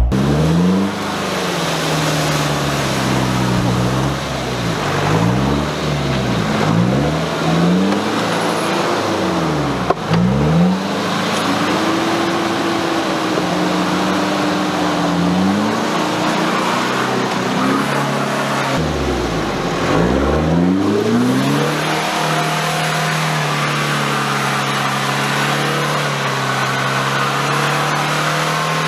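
Jeep Cherokee engine revving up and falling back again and again as it is driven through deep mud and water off-road, then holding a steady pitch for the last several seconds.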